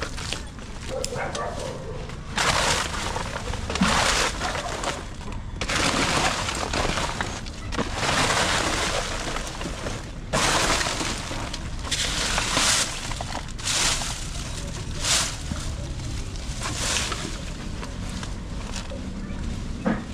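Irregular bursts of rustling and crackling, like dry leaves and brush being pushed through or broken, some lasting a couple of seconds.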